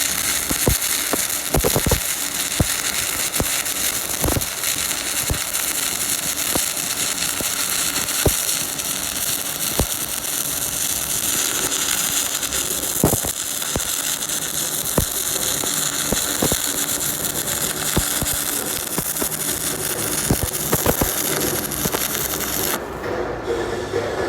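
Stick-welding arc burning on a 7016 electrode: a steady frying hiss with irregular sharp crackles and pops. The hiss cuts off suddenly near the end as the arc is broken.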